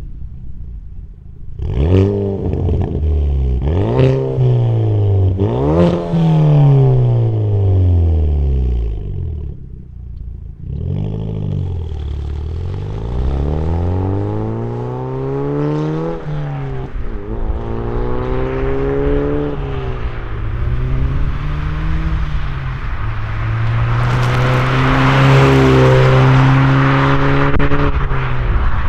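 Hyundai Veloster N's turbocharged 2.0-litre four-cylinder through an MBRP 3-inch cat-back dual exhaust, revved three times from standstill, then pulling away and accelerating through the gears, the pitch dropping at each shift before it settles to a steadier note. A rushing noise builds near the end.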